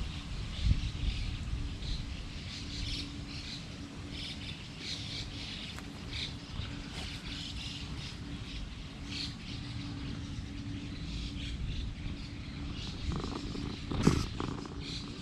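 Small birds chirping over a low rumble of outdoor background noise, with one short, louder sound near the end.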